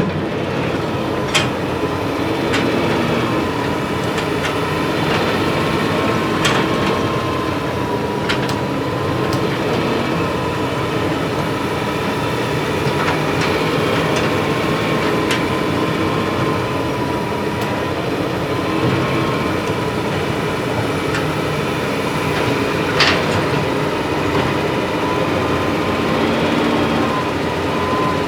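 Hitachi hydraulic excavator working: steady engine and hydraulic noise with a thin wavering whine and a few sharp clanks scattered through it.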